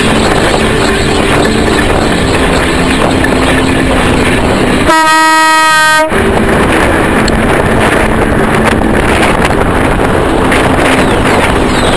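Steady wind and road rattle on a bicycle-mounted camera riding over rough asphalt. About five seconds in, a single vehicle horn sounds a steady blast for about a second.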